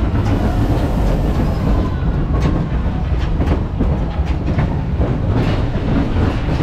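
Barbisan ghost train car rolling on its steel track: a steady low rumble from the wheels with irregular clicks and clacks, more of them in the second half.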